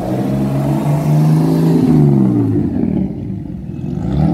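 BMW rally car's engine revving hard under acceleration, its pitch climbing and dropping with the gear changes; another rising rev near the end.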